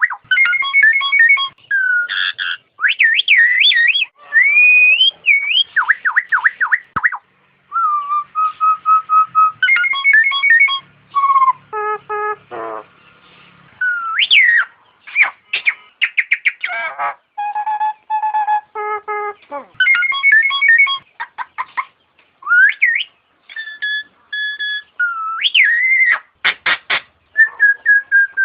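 Nias hill myna calling: a varied run of loud, clear whistles, rising and falling glides and quick repeated notes, delivered in short phrases with brief pauses between them.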